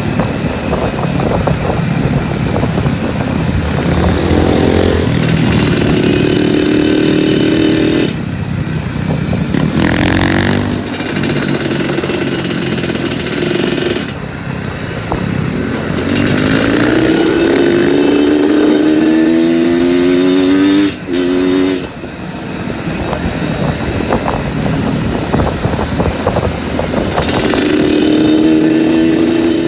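Two-stroke trail motorcycle engine being ridden hard, its pitch climbing in three rising throttle pulls with the revs dropping back between them.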